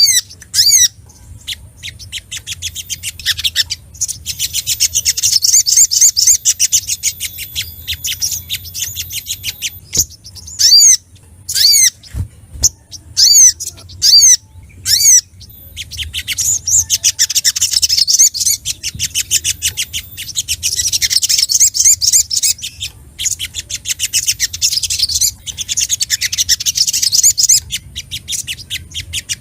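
Brown-throated sunbird (sogok ontong) singing excitedly: long phrases of rapid, high twittering trills, with a run of separate sharp down-slurred notes in the middle, the agitated song of a male calling out a rival.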